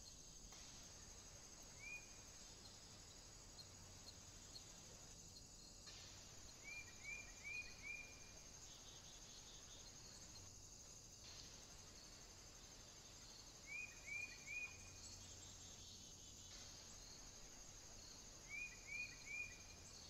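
Faint steady high-pitched chirring of insects such as crickets or cicadas, with a few brief breaks. Four times a bird gives short rising chirps, mostly in quick runs of three or four.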